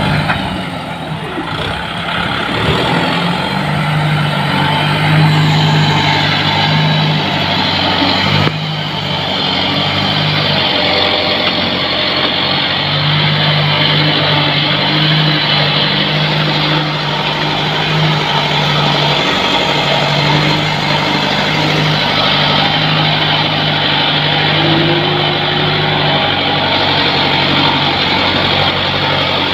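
Kubota tractor's diesel engine running steadily under load, pulling a fully loaded soil trolley. The sound changes abruptly about eight seconds in.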